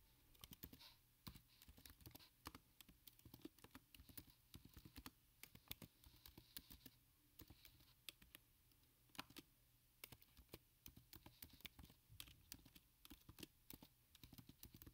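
Faint typing on a computer keyboard: an irregular run of key clicks with short pauses.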